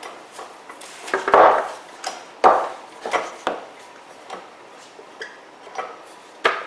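Wooden workpieces knocking and clattering as they are handled and fitted together, with a few scattered sharp knocks, the loudest two about a second and two and a half seconds in.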